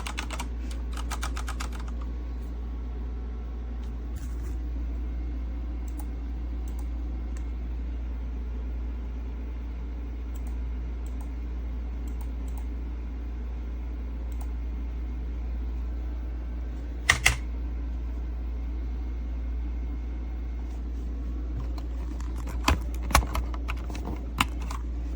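Keys on a mechanical keyboard clicking: a quick run of typing at the start, then scattered keystrokes, two sharp clacks about two-thirds of the way in and a cluster of keystrokes near the end. A steady low electrical hum lies under it all.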